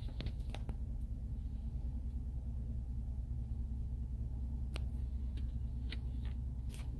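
2022 Jeep Wagoneer's 5.7-litre Hemi V8 idling, a steady low hum heard from inside the cabin, with a few faint light clicks.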